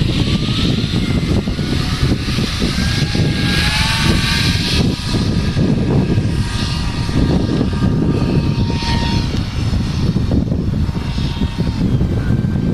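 Radio-controlled model Yak-130 jet's motor whining as it flies past overhead, its pitch rising and falling several times with throttle and passes, over a heavy low rumble of wind on the microphone.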